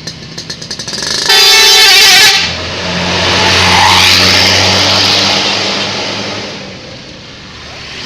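A super-high-deck coach sounds its telolet musical air horn in a loud blast of about a second, then drives past, its engine and tyre noise swelling to loudest about four seconds in and fading away.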